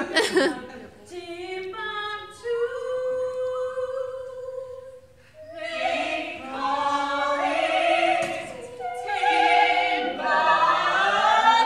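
Singing without instruments: a long held note for about three seconds, then fuller, louder singing with vibrato from about six seconds in.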